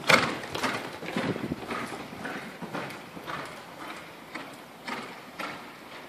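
A horse's hooves cantering on the sand footing of an indoor arena: a steady run of muffled hoofbeats, about two strides a second. It is loudest in the first second as the horse passes close, then fades as the horse moves away.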